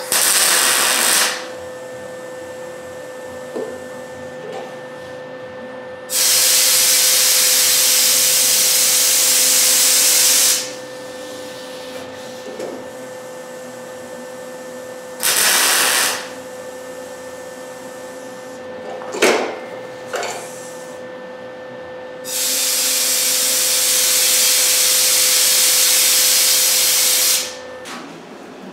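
MIG welder arc crackling and sizzling in four separate bursts, a short one, a run of about four seconds, another short one and a run of about five seconds, as a steel patch is stitch-welded into a rusted Camaro door shell. A steady hum runs underneath and stops near the end.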